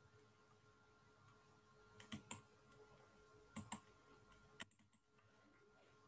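Faint computer mouse clicks: two quick double-clicks about two and three and a half seconds in, then one more single click, with a faint steady hum underneath.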